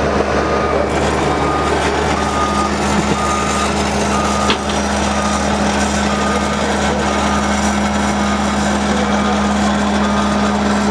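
Heavy truck engine running steadily while its reversing alarm beeps in an even rhythm. There is a single knock about halfway through.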